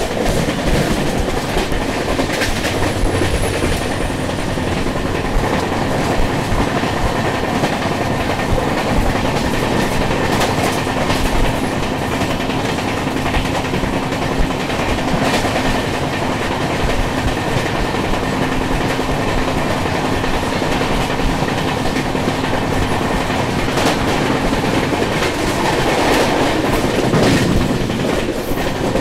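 Express passenger train running at speed: a steady loud rumble of coach wheels on the rails, with clickety-clack over rail joints and a few louder clanks along the way.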